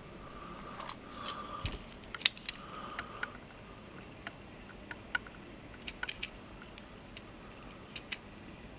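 Small motorized display turntable turning, with scattered irregular light clicks and ticks and a faint intermittent whine in the first few seconds.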